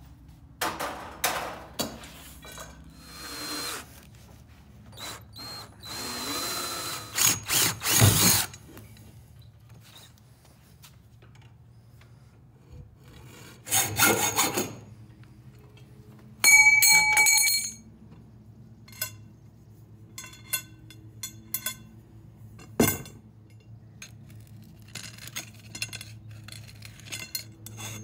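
Metalworking on galvanized steel conduit: bursts of a power drill, a hacksaw cutting through the pipe about halfway through, a ringing metal clang, and scattered knocks and clicks as the pipe is handled.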